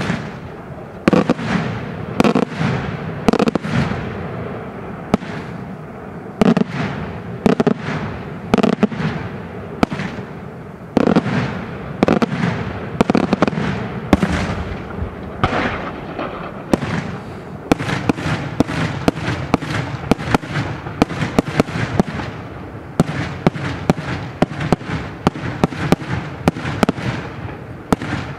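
Daytime aerial fireworks by Senatore Fireworks going off: loud shell bursts and firecracker reports about once a second over a rumbling echo. About two-thirds of the way in they quicken into a dense run of several bangs a second.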